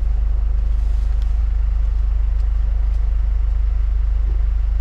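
Kia camper van's engine idling, heard inside the cab as a steady low rumble.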